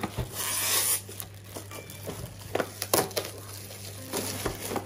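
Metallic foil and paper gift wrap being ripped and crumpled by hand: a hissing tear near the start, then scattered crinkles and crackles.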